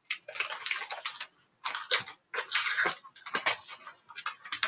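Cardboard mailer and packing tape being cut and pulled open by hand: irregular bursts of rustling and scraping with short pauses between them.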